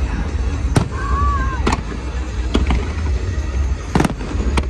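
Fireworks bursting: about five sharp bangs at uneven intervals over a steady low rumble, with a brief whistle-like tone that rises and falls about a second in.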